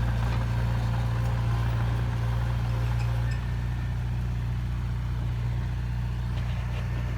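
A heavy truck's diesel engine running steadily at a constant low speed.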